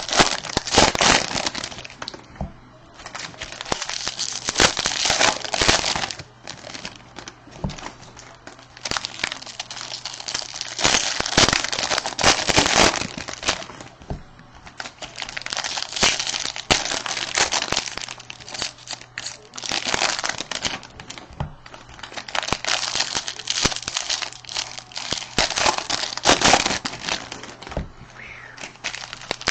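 Plastic wrappers and packaging crinkling as they are handled, in repeated bursts of a second or two, with small clicks and taps.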